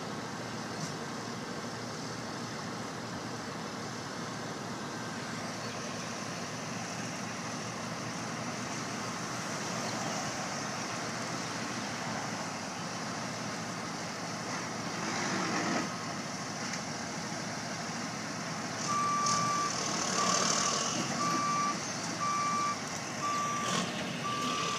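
Road traffic passing, with a heavy vehicle going by in the middle. Then a heavy wrecker's reverse alarm starts beeping steadily, about one beep a second, as the tow truck backs into position.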